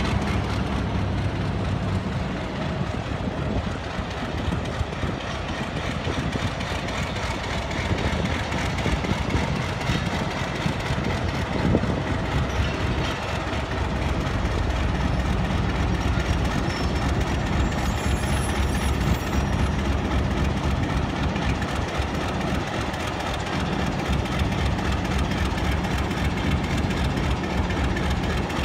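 Pakistan Railways diesel locomotive running steadily as it hauls a passenger train slowly out of the station, its low engine hum over the rumble of the coaches on the rails.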